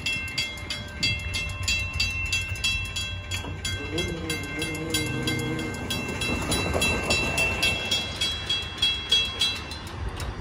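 Railroad crossing bell ringing steadily, about three strokes a second, while the gates come down; it stops near the end. Around the middle a train horn sounds for about two seconds.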